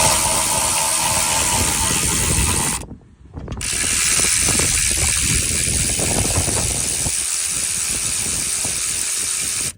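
Cordless electric ratchet running, spinning the torque strut's 14 mm bolts loose. It runs in two goes: about three seconds, a brief stop, then about six seconds more before cutting off.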